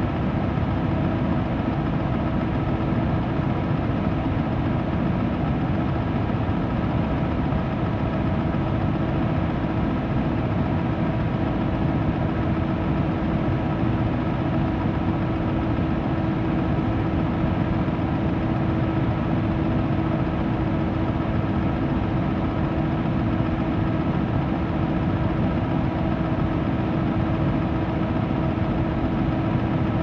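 Electric fan running steadily: a constant, low-weighted brown-noise rush with a steady motor hum at several pitches held underneath, unchanging throughout.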